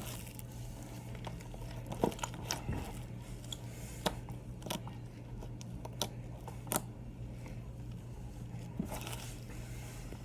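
Slime being squished and played with, giving irregular sticky clicks and pops, over a steady low hum.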